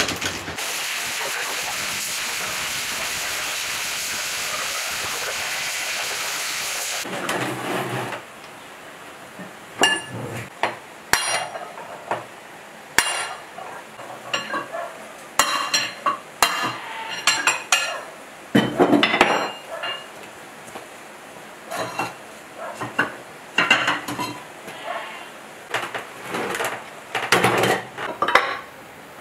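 A steady hiss for about the first seven seconds, then metal hand tools scraping, clinking and knocking irregularly against a stripped diesel engine block as it is cleaned and shifted on a wooden bench.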